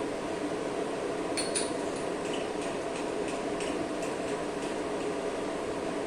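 Light metallic clinks, about ten of them over a few seconds, as a small test piece is handled and set into a CNC lathe's chuck, over a steady machine hum.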